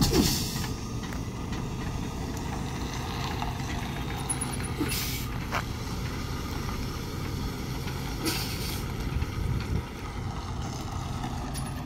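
Semi tractor-trailer's diesel engine running low and steady as the rig creeps in reverse, with short hisses of air from the air brakes at the start, about five seconds in and about eight seconds in.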